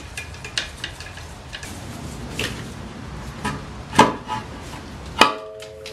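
Hand tools and metal engine parts clinking and knocking as an upper intake plenum is unbolted and lifted off a V8. A run of light clicks comes at the start, then scattered knocks, the sharpest about four seconds in and again just after five seconds.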